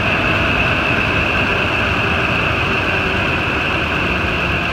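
2008 Ford F-250 engine idling steadily, its serpentine belt running over the newly replaced tensioner with no grinding from the tensioner pulley.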